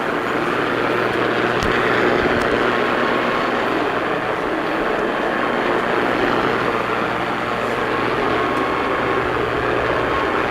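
Steady hiss of radio static with a low, steady hum underneath, from a weather-radio or broadcast receiver between alert messages.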